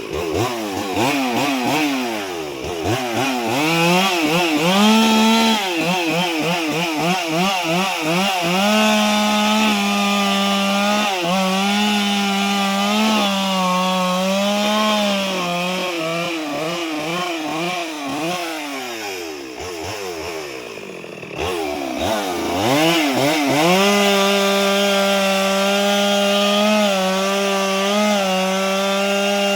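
Two-stroke chainsaw cutting wood. The engine revs up and down in quick throttle blips early on, then holds high revs for long stretches, drops low for a couple of seconds around the middle, and revs back up.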